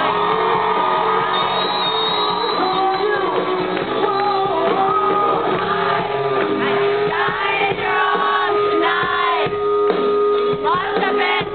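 Live rock band in a concert hall, with a male lead vocal over electric guitar. The audience is shouting and singing along.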